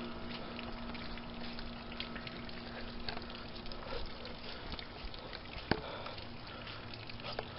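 Steady hiss of falling rain, with a low steady hum underneath that fades out about halfway through and one sharp click near the end.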